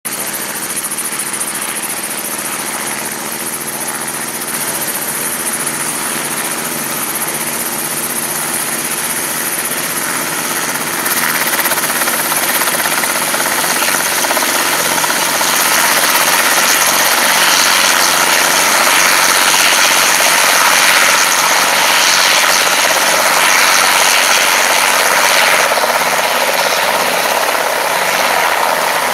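Helicopter running: continuous rotor and engine noise with a strong hiss, growing louder about eleven seconds in.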